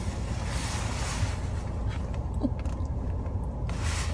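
Steady low road and engine rumble of a moving car, heard from inside the cabin, with a soft hiss of air about a second in and again near the end.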